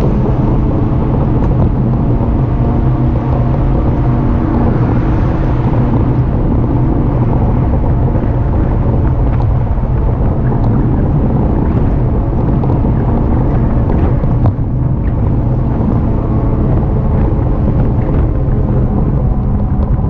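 E-bike ride noise at steady speed: a constant low rumble with a steady hum that holds its pitch.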